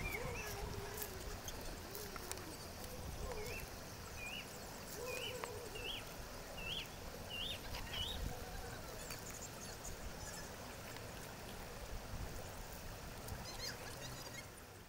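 Open-air ambience with a steady noise bed. A bird calls a series of about seven short hooked notes, each a little higher than the last, over a few seconds.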